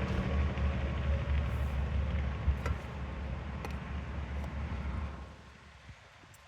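A low, steady motor rumble that drops away about five seconds in, leaving quiet with a few faint clicks.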